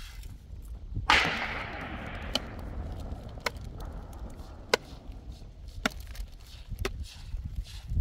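A sudden loud crash about a second in, trailing off over about two seconds, then five sharp knocks roughly a second apart over a steady low rumble.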